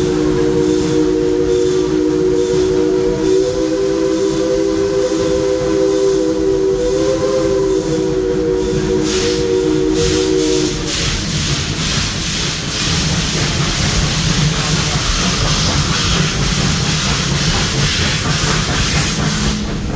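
Steam locomotive's chime whistle held in one long chord, cutting off about eleven seconds in, followed by the train running along with a steady hiss.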